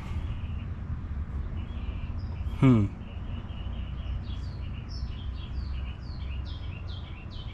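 A bird chirping, a run of short, high, falling chirps about twice a second that starts about four seconds in, over a steady low outdoor rumble. Just before the chirps begin comes a single short, falling voice sound, the loudest moment.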